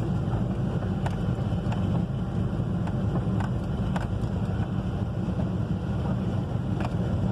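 A vehicle's steady low engine rumble, heard from inside the cab, with a few faint ticks scattered through it.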